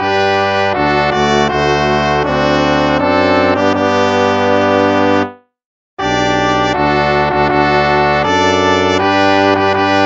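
Instrumental hymn played in slow, sustained chords with a brass sound of trumpet and trombone. The music fades out about five seconds in, leaves a moment of silence, and starts again at six seconds.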